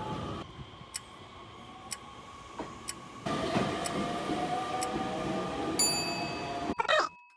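Quiz countdown ticking about once a second over train sounds. From about three seconds in, a Nishitetsu electric train pulls away from the platform, its motor whine rising slightly in pitch over the wheel noise. A short high ding comes near the end, then the sound cuts off.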